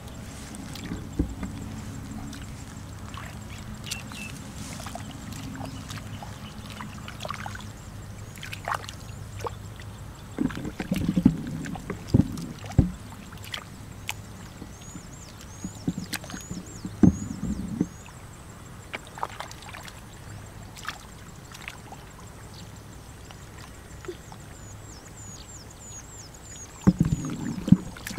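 Hands and legs sloshing and squelching through shallow muddy water and soft mud while groping for fish, with small splashes and clicks throughout and louder bursts of sloshing a few times.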